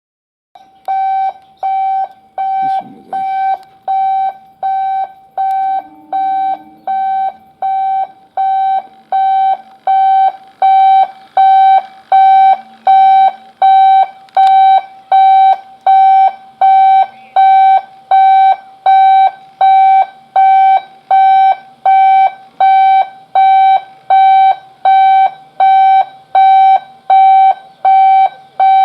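Electronic warning alarm beeping steadily in one high tone, about four beeps every three seconds, getting louder about a third of the way through.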